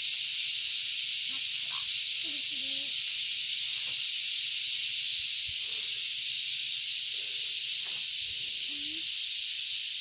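Cicadas (garengpung) calling: a steady, high-pitched hiss that holds one level throughout.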